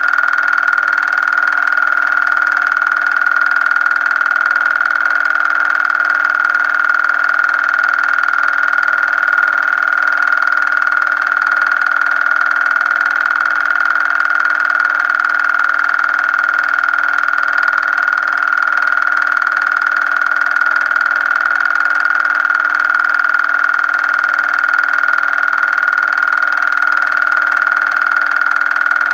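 A steady, high-pitched whine over hiss, with a weaker low hum and a faint low pulse about twice a second, unchanging throughout.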